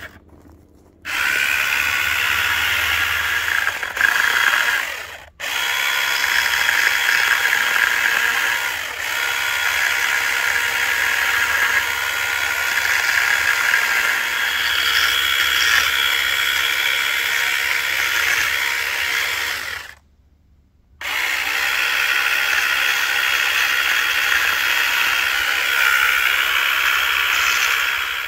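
Small electric mini chainsaw running and cutting into a cedar stump with a steady whine. It starts about a second in, cuts out for a moment near five seconds, and stops for about a second two-thirds of the way through before running again.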